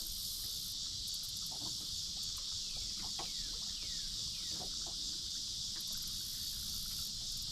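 Steady, high-pitched chorus of insects such as crickets, with a few faint falling chirps in the middle.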